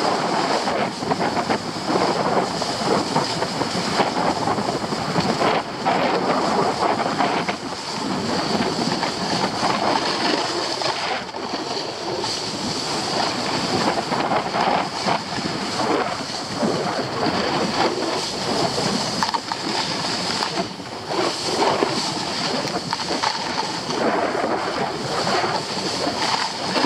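Skis scraping over groomed, packed snow during a downhill run, with wind rushing over the action camera's microphone: a steady rushing noise that rises and falls in level.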